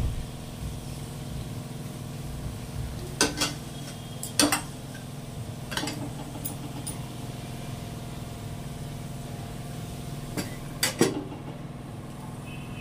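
Metal spatula knocking against a metal kadhai a few times while ivy gourd sabzi is stirred, then a steel plate lid set down over the pan with two clanks about a second before the end, over a steady low hum.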